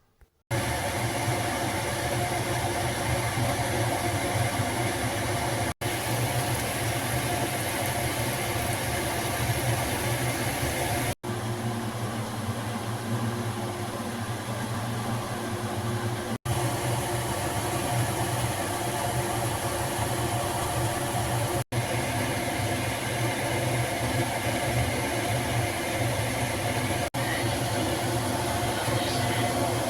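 Steady mechanical hum of a motor or fan, with a strong low drone and a hiss on top. It drops out for an instant about every five seconds.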